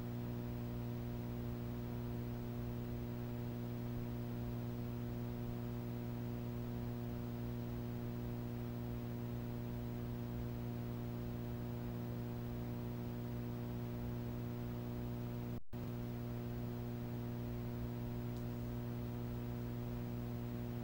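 Steady electrical hum with hiss: several steady tones stacked together, strongest low down. It cuts out for an instant about 15 seconds in.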